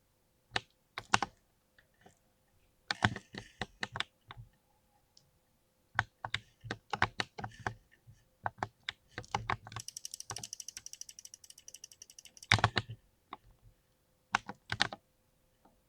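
Mechanical keyboard being typed on in irregular bursts of keystrokes. From about ten seconds in, a fast, even run of clicks, about a dozen a second, lasts for two to three seconds.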